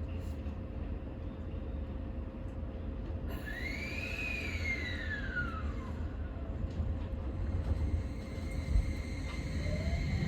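Keio Liner train (Keio 5000 series electric train) running on the line, heard from aboard: a steady low rumble, with a high whine that rises and then falls over about three seconds midway, and another tone starting to climb near the end.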